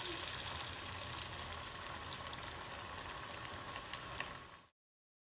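A chana dal vada sizzling in hot mustard oil in a kadhai, freshly dropped in, the sizzle slowly dying down with a few small crackles. It cuts off suddenly near the end.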